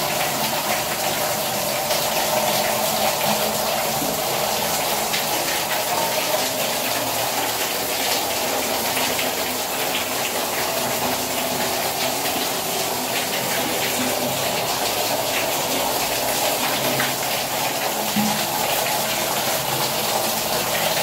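Shower running: water spraying from a shower head and pouring from a waterfall spout, splashing onto rock walls, a steady rushing hiss.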